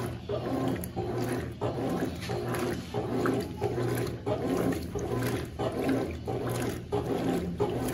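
Consul 12 kg CWS12 top-load washing machine agitating while it drains: a motor hum and churning water come in even strokes about twice a second, with a short break each time the agitator reverses.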